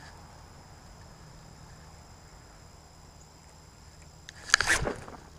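Baitcasting reel winding in a spinnerbait against quiet riverbank ambience with a faint steady high-pitched ringing. About four and a half seconds in, a sudden loud burst of rod and handling noise as the rod is swept back to set the hook on a fish.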